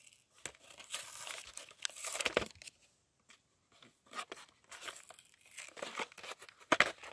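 A paper mailer being torn open by hand: irregular ripping and crinkling of the paper, with a short pause about three seconds in.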